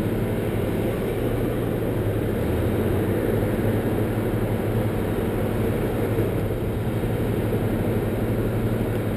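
Engine idling nearby: a steady low drone with a constant hum.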